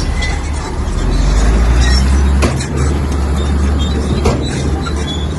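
Heavy diesel engine of a bulldozer running under load, a deep rumble that swells about a second in and eases after two and a half seconds. Two sharp knocks stand out, about two and a half and four seconds in.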